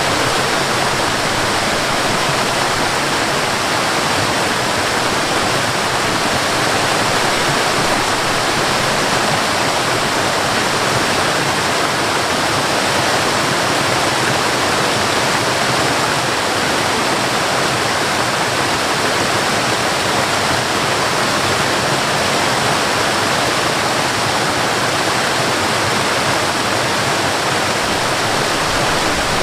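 Waterfall and river water rushing, a steady, unbroken roar of falling and flowing water.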